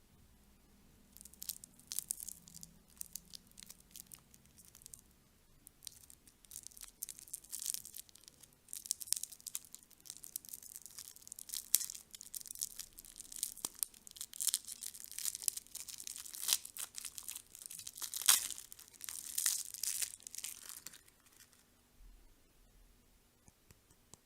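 Crinkly candy packaging being handled and torn open, with dense irregular crackling that comes and goes for about twenty seconds and then stops.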